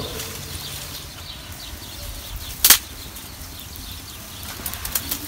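Quiet background with faint bird chirps, broken by one sharp crack about two and a half seconds in.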